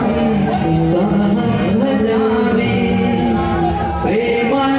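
Devotional group singing over music, with long held notes.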